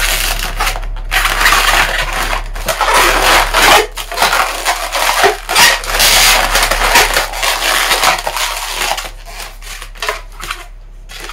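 Inflated latex modelling balloons rubbing against each other and the hands in irregular bursts as a twisted balloon figure is squeezed and shaped.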